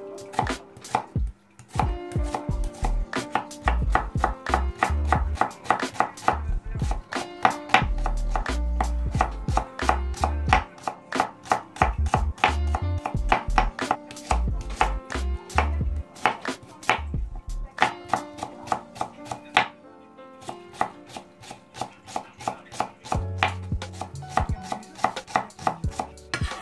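Kitchen knife chopping a shallot on a wooden cutting board: quick, uneven strokes, several a second, with a few short pauses, as the shallot is sliced and then minced fine.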